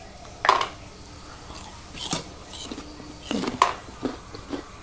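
Crisp bites and chewing of a raw nashpati (Asian pear), a handful of short, sharp crunches scattered unevenly through the moment.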